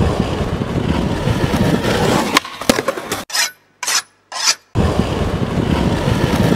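Skateboard wheels rolling over rough pavement with a steady gritty rumble. A few sharp clacks come about two and a half seconds in, then a near-silent gap with three short bursts of noise before the rolling starts again.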